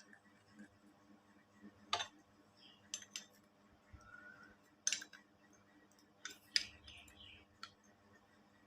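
Scattered sharp clicks and clinks of small metal parts and tools being handled, about seven in all, the loudest roughly two, five and six and a half seconds in.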